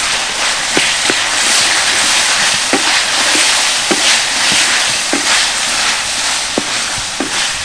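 Hilsa fish head sizzling in a pan of spice paste while a spatula breaks it up and stirs it: a steady frying hiss that swells with each stroke, with sharp clinks of the spatula against the pan.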